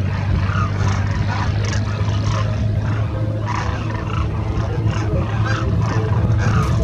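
Birds calling over a steady low rumble.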